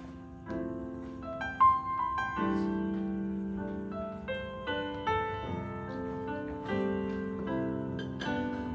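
Slow piano music: a melody of single notes over held chords, a new note struck every half second or so.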